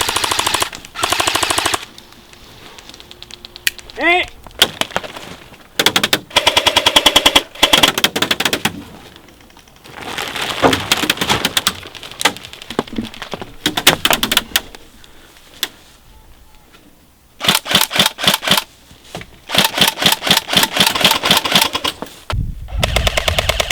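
Airsoft guns firing rapid full-auto bursts of a second or two at a time, again and again, with scattered single shots between them.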